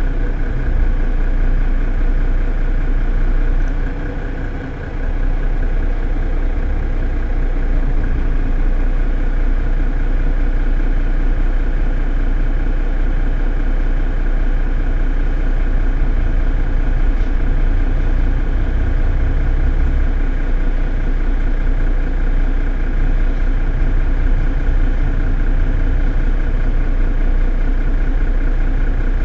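Mercedes-Benz Citaro city bus engine idling steadily while the bus stands at a stop. The sound dips briefly about four seconds in.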